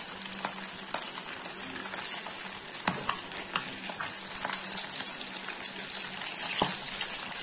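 Turmeric-coated fish pieces frying in hot mustard oil in a kadai: a steady sizzle full of small pops and crackles. A metal spatula clicks against the pan a few times as the pieces are moved and turned.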